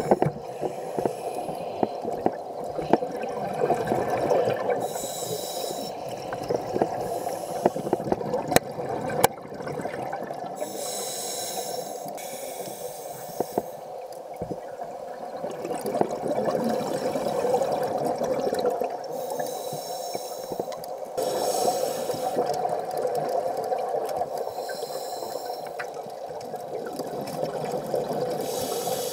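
A scuba diver breathing through a regulator underwater: a hiss on each inhale, about every five seconds, alternating with the rumble and gurgle of exhaled bubbles. Scattered sharp clicks are heard throughout.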